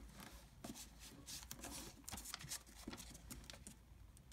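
Thin origami paper rustling and crinkling faintly as it is folded and creased by hand, in irregular soft scratches.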